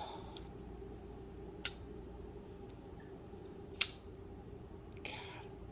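Two sharp clicks from a folding knife being handled, about two seconds apart, the second louder, with a soft brief rustle near the end.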